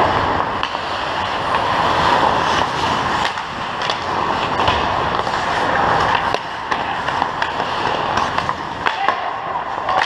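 Ice hockey skates scraping and carving the ice in continuous play, with frequent sharp clacks of sticks and puck against the ice, pads and each other.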